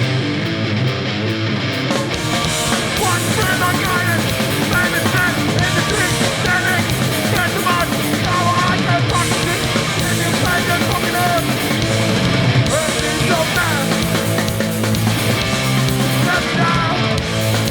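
Hardcore punk band playing live at full volume: distorted electric guitars, bass and drums.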